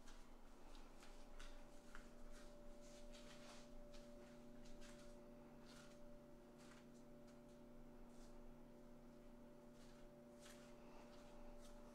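Near silence: room tone with a faint steady hum made of several held tones, and a few soft scattered clicks.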